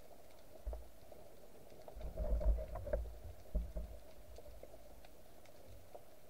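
Underwater ambience recorded from a camera on a speargun: a steady faint hum with scattered faint clicks, and dull low thumps and rumbles from about two to four seconds in, loudest around two and a half seconds, with a single thump just before that.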